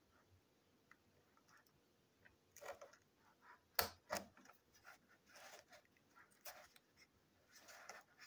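Scissors cutting through the tape and cardboard of a small shipping box. The first couple of seconds are nearly silent, then sharp snips follow from about two and a half seconds in, the loudest near four seconds, with short scraping cuts after them.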